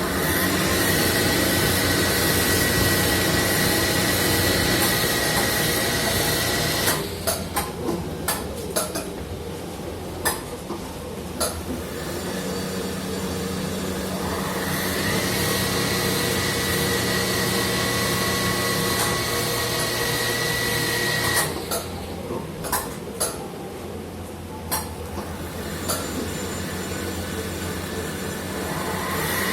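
CNC machine working through repeating cycles: a steady high-pitched whine with a low hum runs for several seconds, then stops for a run of sharp metallic clanks and knocks, and the whine comes back. The cycle happens twice.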